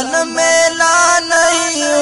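Naat music without words: a chant-like melody of held notes stepping up and down in pitch, with a few short breaks between phrases.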